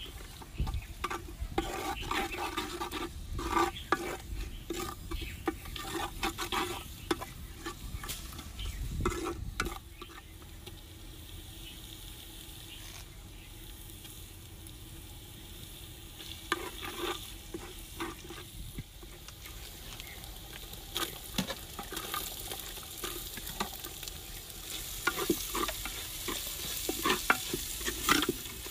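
A wooden-handled ladle stirring and scraping ingredients frying in an unglazed clay pot, with a steady sizzle beneath. The stirring pauses for several seconds near the middle, leaving mostly the sizzle, then starts again.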